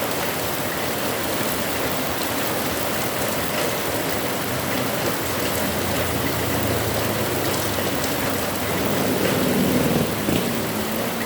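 Heavy rain falling steadily in a dense, even hiss. A low rumble swells in the last few seconds.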